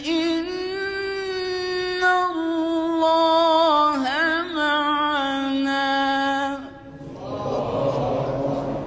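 Male Quran reciter's voice chanting in the ornate mujawwad style: one long, melismatic line with a wavering pitch that breaks off about seven seconds in. A murmur of listeners' voices follows.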